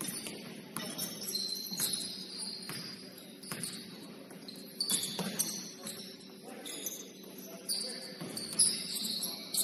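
Basketball game on an indoor court: sneakers squeaking on the floor in short, high squeals again and again, with the thud of the ball bouncing and footfalls about once a second.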